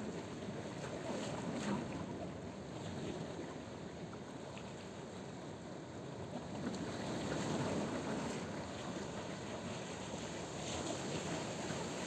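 Black Sea surf washing in on the shore, a steady rushing wash that swells as a wave comes in about two-thirds of the way through.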